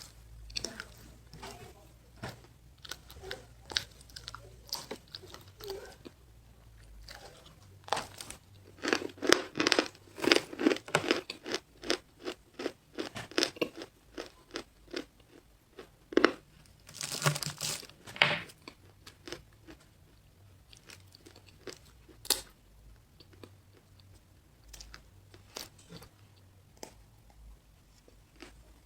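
Close-miked crunchy chewing of a square snow bar: sparse soft crunches, then a run of rapid loud crunches about eight seconds in, a sharp bite a little after halfway and a loud burst of crunching just after it, fading back to softer, sparse chewing.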